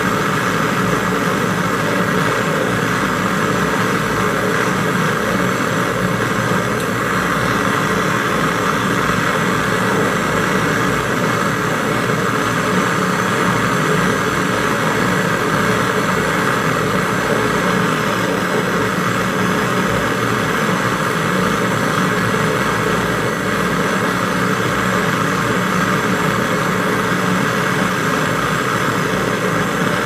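Handheld canister gas torch burning with a steady rushing hiss, its flame heating the joint while brazing a copper compressor pipe to an iron condenser wire.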